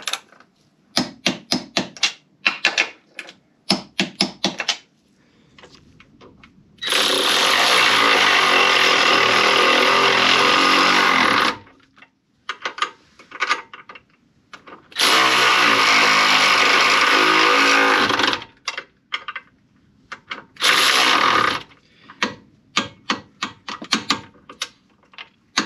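Hand ratchet clicking in quick runs as bolts are wound, then a power tool running hard on the bolts in two long stretches of about four and three seconds and a short one, the loudest sound here; near the end, more quick ratchet clicks from the torque wrench on the suspension ball joint bolts.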